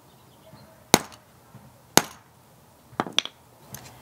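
A wooden-handled hammer striking a hammer-blow crimping tool, crimping a ring terminal onto heavy battery cable: sharp metal strikes about a second apart, coming closer together near the end.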